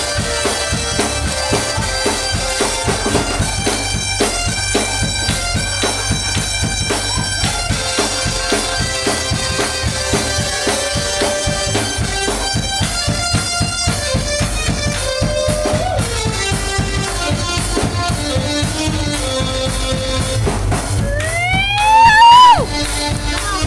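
Live gospel praise music with a drum kit keeping a steady beat under sustained pitched notes. Near the end a man's voice rises in a loud, climbing shout through the microphone, the loudest moment, then breaks off.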